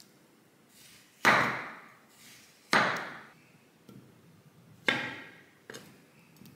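Kitchen knife chopping through papaya onto a wooden cutting board: three loud sharp strikes, each fading over about half a second, and two lighter taps, one of them near the end.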